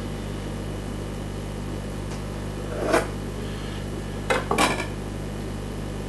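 Kitchen utensils knocking on a work surface while ravioli are cut and shaped: one knock about three seconds in, then two close together about a second later, over a steady low hum.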